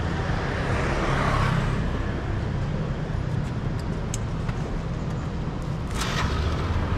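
Street traffic noise: a steady low rumble with a vehicle passing, swelling about a second in, and a short hiss about six seconds in.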